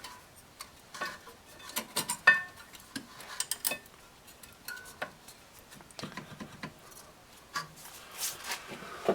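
Irregular sharp metallic clicks and clinks, some with a short ring, as steel-backed brake pads and their hardware are handled and seated in a rear caliper bracket.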